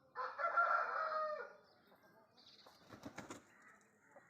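Aseel rooster crowing: one hoarse call of about a second and a half, loudest at the start. A few quieter rustling strokes of flapping wings follow about a second later.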